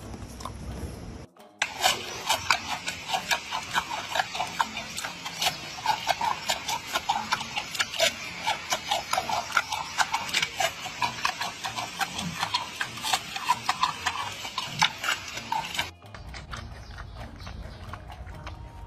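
Giant panda biting and chewing a fresh bamboo shoot: a fast run of loud, crisp crunches and snaps, several a second, which stops suddenly near the end.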